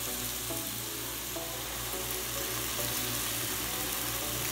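Chopped onion, ají pepper and tomato frying in hot oil in a caldero over high heat: a steady sizzle.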